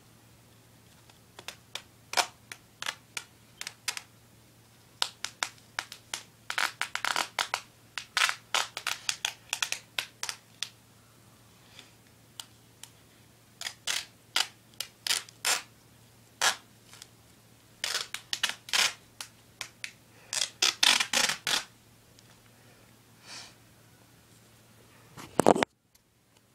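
Clear sticky tape (Sellotape) being pulled off the roll and wrapped around the head in many short, scratchy rips that come in bursts. There is one loud bump near the end.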